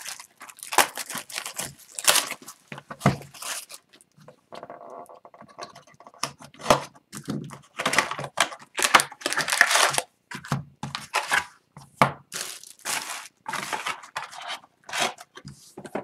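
Clear plastic shrink wrap tearing and crinkling as it is stripped off a sealed box of hockey trading cards, with irregular crackles and rips throughout, then the cardboard box and foil card packs rustling as they are handled.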